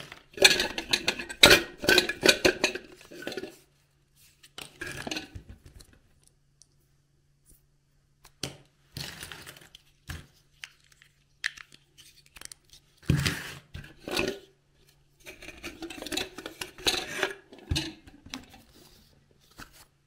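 Small plastic toy pieces, building blocks and jigsaw puzzle pieces, clicking and clattering as hands handle and sort them on a tabletop. The sounds come in bursts of quick clicks and rattles with short pauses between.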